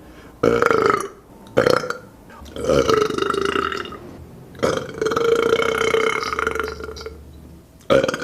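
A person belching five times in a row: two short burps, then two long drawn-out ones, the longest lasting about two and a half seconds, and another beginning near the end.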